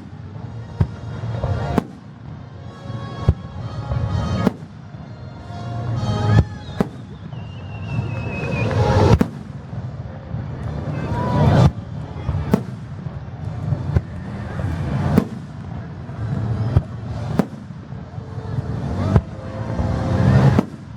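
Aerial fireworks bursting overhead: sharp bangs every second or two over a rolling rumble and crackle, with a few whistling shells gliding in pitch between them.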